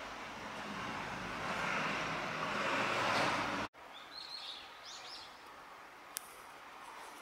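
Noise of a passing vehicle swells for about three and a half seconds, then cuts off abruptly. After the cut a bird gives a few short, high chirps, and there is one sharp click near the end.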